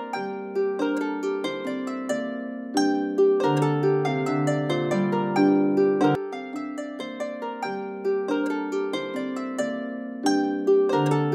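Background music: a gentle melody of plucked string notes, each struck sharply and dying away, in a phrase that repeats about every four seconds.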